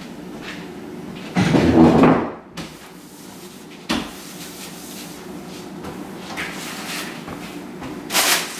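Household handling sounds as a dining table is cleared and wiped: a loud scrape about a second and a half in, a sharp knock about four seconds in, and a plastic bag rustling near the end.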